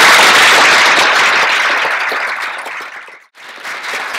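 Audience applauding, loud at first and fading away until it stops about three seconds in.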